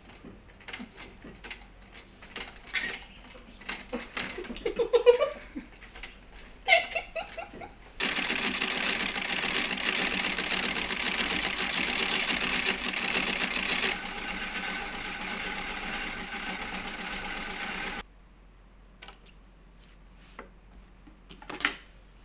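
Foot-treadle sewing machine stitching: a steady, rapid mechanical clatter that starts abruptly about eight seconds in, turns quieter midway and stops abruptly about ten seconds after it began. Light clicks and handling noises come before it.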